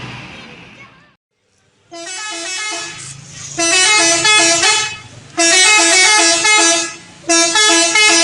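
Telolet bus horn, a multi-tone musical horn on a bus, playing its jingle of quick stepping notes. A quieter phrase comes about two seconds in, then three loud bursts, with a low engine hum underneath.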